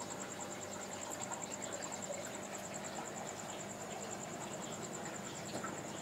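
Home aquarium's air bubbler running: steady bubbling with faint pops and a low hum, under a high, rapidly pulsing trill that goes on without a break.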